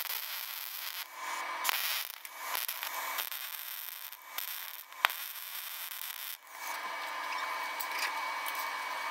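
Electric arc welding a steel patch plate onto a rusted-out lawn tractor mower deck: the arc's crackling hiss, running in several stretches with short breaks between them.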